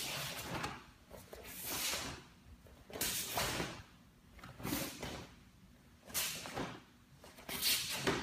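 Wooden bo staff swishing through the air in a series of swings, about six whooshes, one every second and a half or so.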